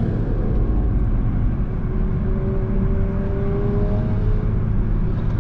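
A car's engine and exhaust pulling in a low gear, with its tone rising slowly about two seconds in, heard over road rumble from a moving car. It is a loud exhaust note that the listeners think might be a straight pipe.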